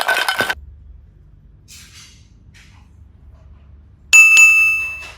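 A jingling sound stops about half a second in; near the end, a bright bell-like chime sound effect rings out and fades over about a second.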